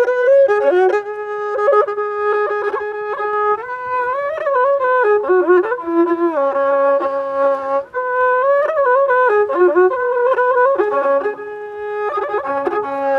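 Music: a bowed string instrument playing a melody full of sliding and bending notes over a few lower held notes.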